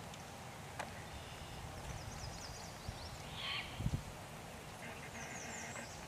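Wild birds calling: a few quick high chirps, a short harsh call about three and a half seconds in, and a buzzy call near the end. A low thump just before four seconds.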